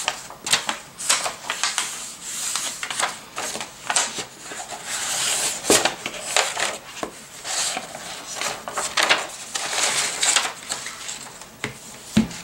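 Paper and cardboard handling: irregular rustling, rubbing and scraping as a hardcover notebook is slid out of a white paper sleeve and lifted from its cardboard box.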